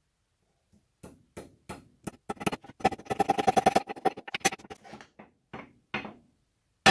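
Hammer driving a steel wedge into the end of a new axe handle in the axe head's eye: metal-on-metal strikes that start slowly, speed up into rapid taps with a ringing note, slow again, and end on one harder blow.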